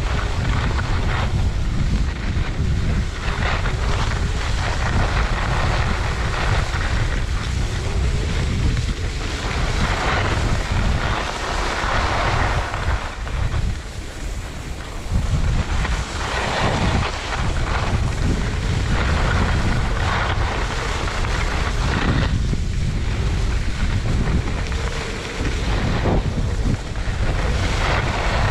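Wind buffeting a GoPro's microphone during a downhill ski run, a heavy steady rumble. Over it, the hiss of skis sliding over groomed snow rises and falls with the turns.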